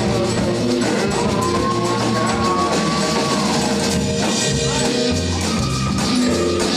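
Live rock band playing, with drum kit, bass and guitar, under a high lead line that holds long notes, each sliding down at its end.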